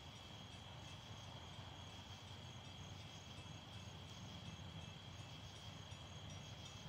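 Faint, steady chirping of crickets, with a low rumble underneath.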